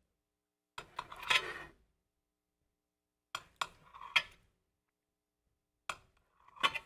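Knife sawing through a dense honey cake, with sharp clicks and scrapes where the blade meets the serving platter, in three short bouts.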